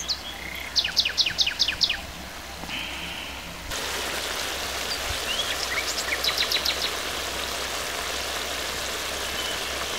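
A bird calls in a quick run of about eight sharp, high notes. From about four seconds in, a steady sizzling hiss sets in: mushroom curry simmering in an iron kadai, with a few more bird notes over it.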